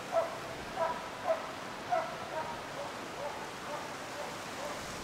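Norwegian elkhound barking in a steady rhythm, a little over two barks a second, the barks growing fainter after about two seconds: a bay bark, the dog holding a moose at bay.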